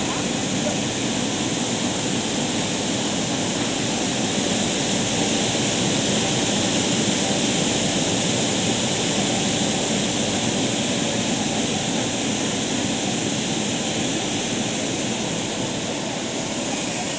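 Fruit and vegetable washing machine running: a steady rush of churning, spraying water.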